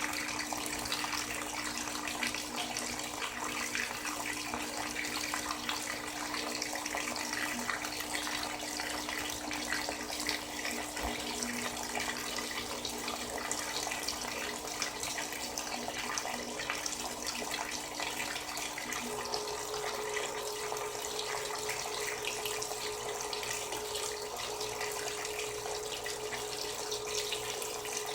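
Frigidaire Gallery Series top-loading washing machine filling, water rushing steadily from the inlet into the tub. A low steady hum runs under it and shifts higher about two-thirds of the way through.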